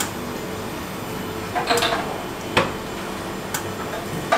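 Busy shop-street ambience: a steady background hum with three short sharp knocks, about a second apart, and a brief snatch of a voice.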